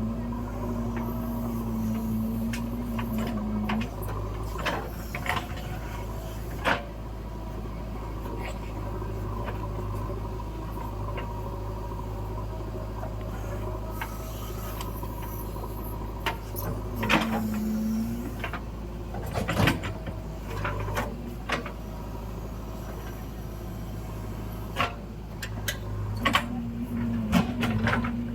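JCB backhoe loader's diesel engine running steadily, with a whining tone that comes and goes three times and scattered sharp knocks and clanks as it works loading mud.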